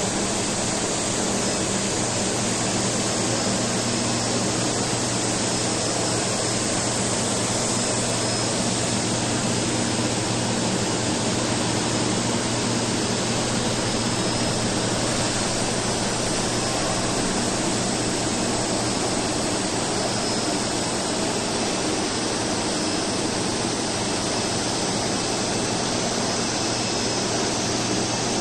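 Laser cladding equipment running: a steady hiss over a low hum that does not change.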